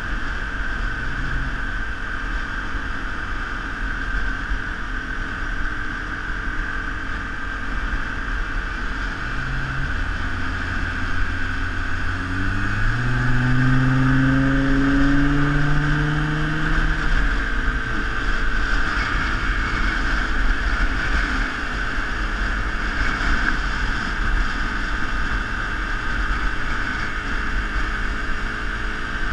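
Steady road and wind noise on a moving microphone. From about ten seconds in, a motor vehicle's engine comes up, holds a low note, then rises in pitch for several seconds as it accelerates, before fading back into the traffic noise.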